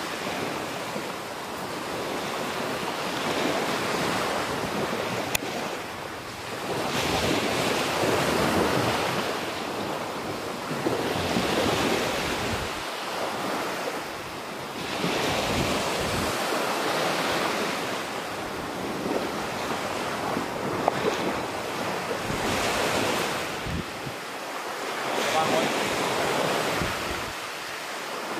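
Sea surf breaking on the shore, the wash swelling and fading every few seconds, with wind buffeting the microphone.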